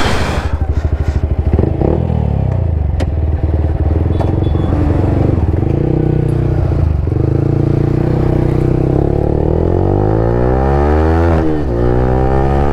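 Motorcycle engine running while riding, at a steady pitch for a while, then rising in pitch as it accelerates through the gears, with a sudden drop at a gear change near the end before it climbs again.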